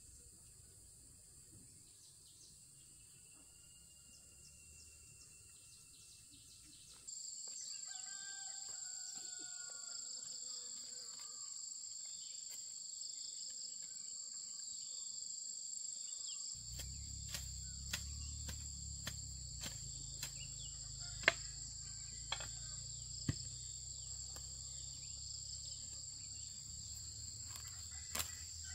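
Steady high-pitched insect drone, with bird calls and, from a little past halfway, scattered sharp knocks and a low rumble. The knocks fit a hoe striking the ground during garden work.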